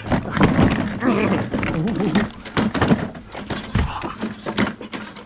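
A quick run of knocks and thuds from a child's ride-on toy mower being tampered with, several strikes a second, with a voice making wordless sounds in between.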